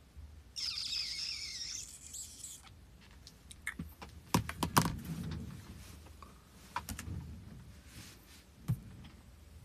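Close handling noise: a couple of seconds of rustling near the start, then a scatter of sharp clicks and taps, loudest around the middle, as someone shifts and touches things next to the microphone.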